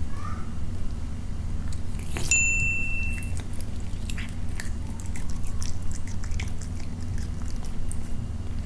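A cat chewing pieces of raw fish and beef, with small wet clicks and smacks over a steady low hum. A short high ping sounds about two seconds in.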